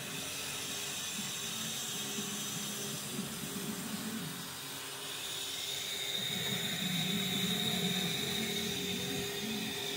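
Steady mechanical hiss and hum of a running chairlift, with a high steady whine that comes in about halfway through and gets a little louder.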